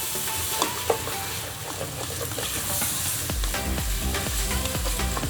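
Rice and beef frying in a pot with onions and pilau masala, sizzling steadily while a spoon stirs and scrapes through the mixture, with a couple of sharp knocks about a second in.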